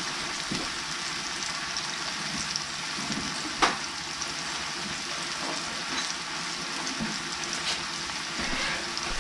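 Chopped garlic sizzling in olive oil in a skillet over low heat, a steady hiss. One sharp click about three and a half seconds in.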